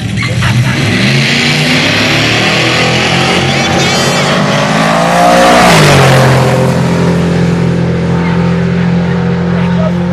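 Drag-racing cars, a 1955 Chevrolet Bel Air among them, launching at full throttle down the quarter mile. The engine note climbs steadily in pitch, is loudest as a car passes about five to six seconds in with a sharp drop in pitch, and then carries on as a steady engine tone.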